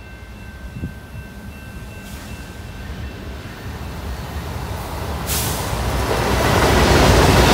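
Freight train approaching behind two diesel locomotives: their engine rumble and wheel noise grow steadily louder, then jump sharply in loudness about five seconds in as the lead locomotive comes alongside and passes close by.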